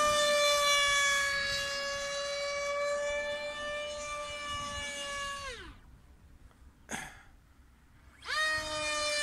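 Electric 2750 kv motor and 7x5 propeller of a small depron model jet in flight, giving a steady high-pitched whine at high throttle. About five and a half seconds in the pitch slides down and the sound falls away as the throttle is pulled back. After a brief blip near seven seconds, the whine rises quickly again near the end as the throttle is opened.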